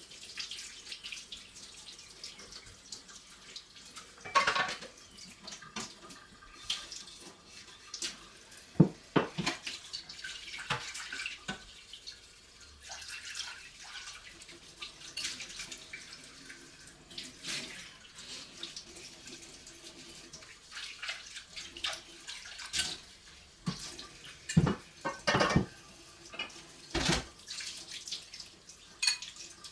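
Water running from a kitchen tap into a sink, with repeated knocks and clatter throughout, the sharpest about nine seconds in.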